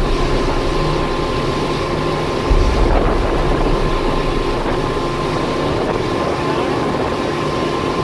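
Boat running steadily at sea: a continuous engine hum mixed with the rush of water and wind, with wind buffeting the microphone in a gust about two and a half seconds in.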